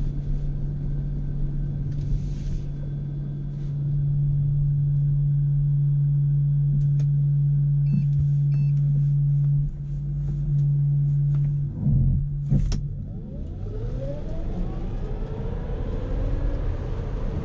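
Tesla Model S P100D heard from inside the cabin: a steady low hum while the car waits at the line in launch mode, a couple of clunks about twelve seconds in, then the front and rear electric motors' whine rising in pitch as the car launches at full power in Ludicrous Plus.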